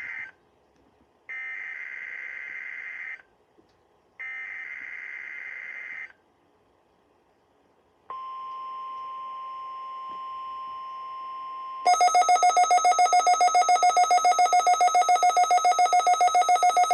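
NOAA Weather Radio Required Weekly Test tones on a Midland WR400: the tail of one burst of SAME (Specific Area Message Encoding) header data tones, then two more bursts of about two seconds each, with short silent gaps between them. About eight seconds in comes the steady 1050 Hz tone alert, held for about four seconds. Then the radio's own alarm cuts in: a much louder, rapidly pulsing beep.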